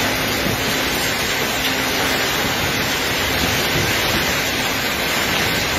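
Violent storm wind and heavy rain: a loud, steady rushing noise.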